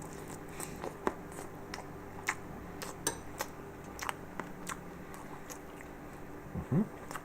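Someone chewing and biting into microwaved Tex-Mex French fries, heard as scattered short clicks and smacks. Under it runs the steady hum of a microwave oven that is still running.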